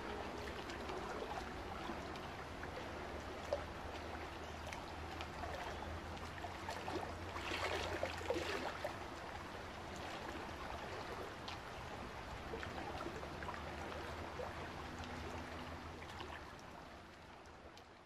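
Water sloshing and trickling over a steady low hum, swelling louder about halfway through; it all fades out near the end.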